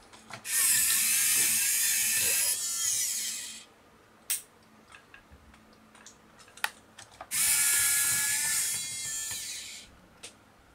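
Small electric gear motor in a scale-model Citroën DS 21's suspension running twice, a few seconds apart, each run a whirring with gear noise lasting about three seconds and shifting in pitch as it ends. A few sharp clicks fall between the runs.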